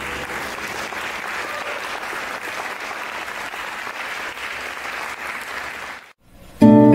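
Audience applauding steadily. The applause cuts off abruptly near the end, and acoustic guitars start playing just after.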